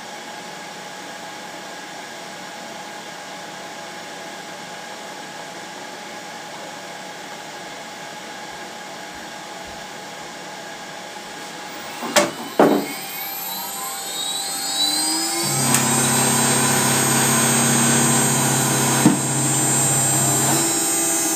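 Laguna CNC router starting up: a steady machine hum, then about twelve seconds in a couple of loud clicks and a rising whine as the spindle spins up, and from about fifteen seconds in a louder steady running sound with a deep hum.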